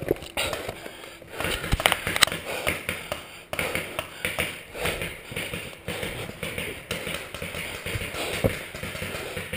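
Paintball fire: irregular sharp taps and cracks of paintball markers shooting and balls striking wooden bunker cover, loudest about two seconds in.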